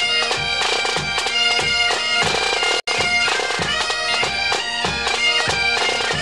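Great Highland bagpipes playing a tune over their steady drones, with a regular low pulse beneath; the sound cuts out for an instant about three seconds in.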